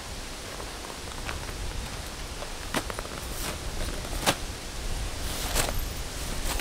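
Rustling with a handful of sharp clicks and knocks over a steady low rumble.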